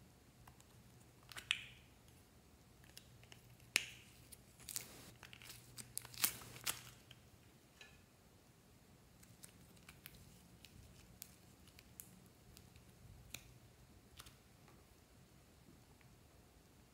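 Hands handling a plastic egg-shaped case and soft modelling clay: a few sharp plastic clicks and snaps in the first seven seconds, then faint, sparse ticks and crackles as the clay is pulled apart.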